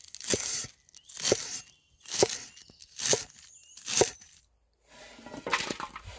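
Food preparation: five short strokes about a second apart, each a brief scraping crunch, then a longer, rougher rubbing sound near the end.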